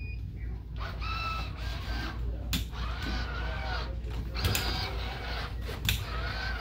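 Powered walking exoskeleton's leg motors whining in repeated 'wah' strokes as the legs step forward one after the other, each whine rising and then falling in pitch, about every one and a half seconds. Sharp taps fall between the strokes.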